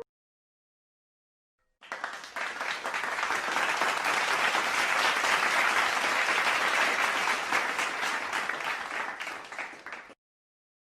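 Crowd applause sound effect: many hands clapping, starting about two seconds in, holding steady, then tapering off and cutting out near the end.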